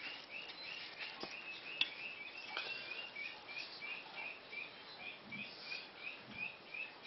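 Ducklings peeping steadily: a short, high, slightly falling peep about three times a second, with a few faint clicks mixed in.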